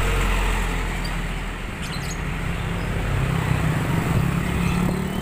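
A light diesel truck drives past close by, its engine strongest in the first second or so, followed by small motorcycles riding past with their engines running steadily.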